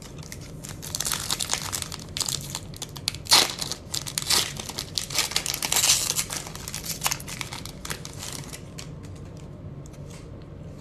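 Foil wrapper of a 2021 Bowman Platinum baseball card pack crinkling and tearing as it is ripped open by hand: a dense run of crackles that thins out after about seven seconds.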